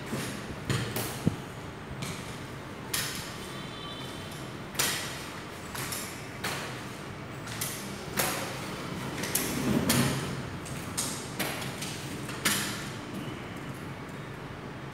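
Crutch tips and feet tapping and scuffing on a tiled floor in a slow, uneven walking rhythm, louder near the start and fading as the walker moves off. A brief high beep sounds about four seconds in.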